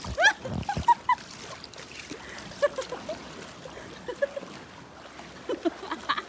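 River water rippling and sloshing around inflatable inner tubes, with a few short high voice calls in the first second and fainter calls later on.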